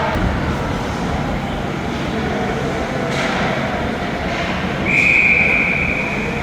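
Ice hockey game: a steady rink rumble of skates and crowd, with a skate scrape about three seconds in. About five seconds in comes one steady, high referee's whistle blast lasting about a second and a half, stopping play.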